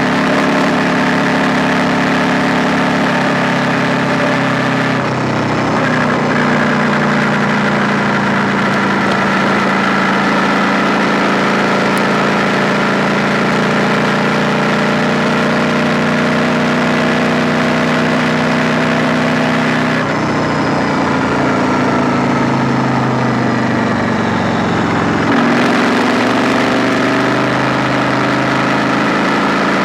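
KTM 890 Duke R's parallel-twin engine running under a rider at a steady, moderate speed. About two-thirds of the way through, the engine note falls steadily as the bike slows, then jumps back up and climbs as it pulls away again.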